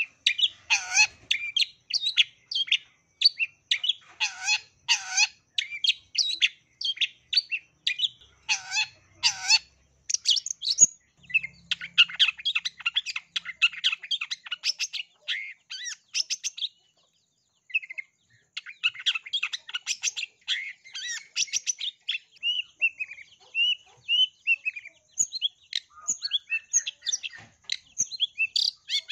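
Long-tailed shrike singing a fast, varied stream of chirps and trills packed with mimicked calls, with a short break a little past the middle.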